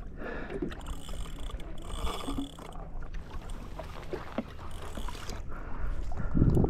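Water sloshing against a kayak hull, with scattered faint mechanical clicks. A louder low thump comes near the end.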